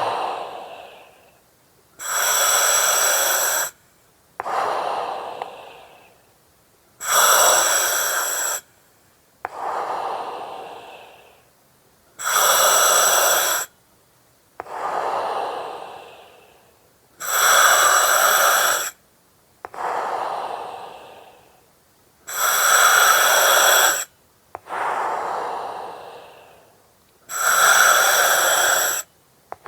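Slow, steady breathing through an oxygen mask, about one breath every five seconds. Each breath has two parts: a sharp-edged hiss of gas with a thin whistling edge through the mask's valve, then a softer rush of air that fades away.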